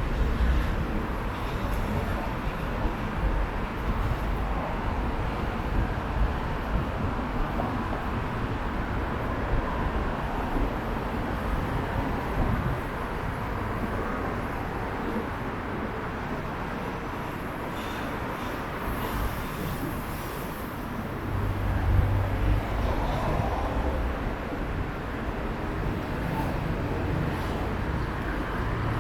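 Steady road traffic on a busy city street, with a low rumble of passing vehicles that swells about three-quarters of the way in.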